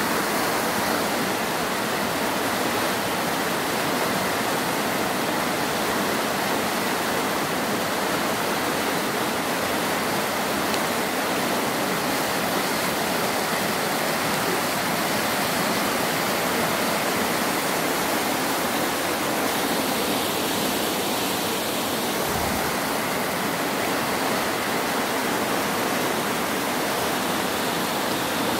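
Fast river rushing through whitewater rapids: a steady, even rush of water.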